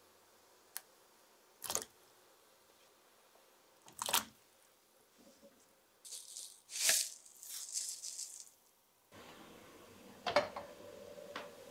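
Kitchen handling sounds: a few sharp clicks and knocks, a rattling shake about six seconds in that lasts a couple of seconds, then a kitchen appliance starts a steady hum about nine seconds in, with one more knock over it.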